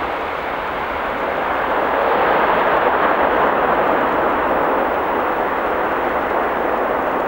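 Boeing 747-8F jet airliner's four GEnx turbofan engines roaring loudly as it rolls out on the runway after touchdown. The roar swells about two seconds in, then slowly eases.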